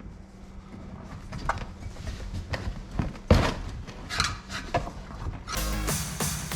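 Scattered knocks, clicks and scrapes of tire levers prying a motorcycle tire bead onto the rim, with one sharp knock about three seconds in. Electronic background music comes in near the end.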